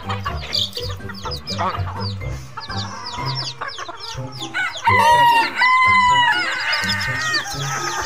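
Chickens clucking and calling with many short falling notes, and a rooster crowing loudly about five seconds in, in two drawn-out parts.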